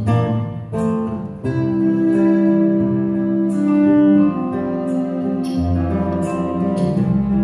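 Live acoustic music: guitar with bowed cello playing a slow ballad, with long held notes and a few new chords struck through it.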